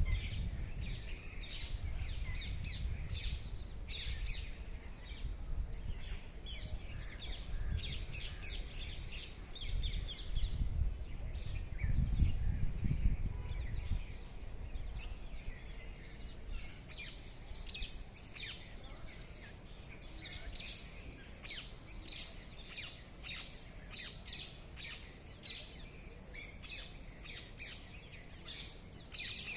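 Several songbirds chirping in quick, overlapping short notes, with the chorus thinning a little in the middle. A low rumble underlies the first half and is loudest around ten to fourteen seconds in.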